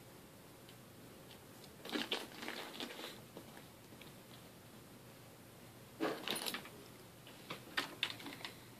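Scattered rustling, clicking and knocking as a ferret scrambles over a fabric backpack and onto a desk, in two bursts about two seconds in and again about six seconds in.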